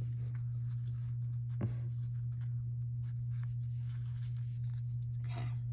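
Pokémon trading cards being handled: faint rustling and light clicks as cards are slid and flipped, with one sharper click about a second and a half in. A steady low hum runs underneath and is the loudest sound.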